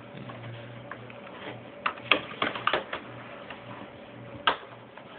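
Sharp plastic clicks and snaps as a netbook's plastic casing is pried and handled apart: a quick cluster about two to three seconds in and one more loud click near the end, over a faint low hum.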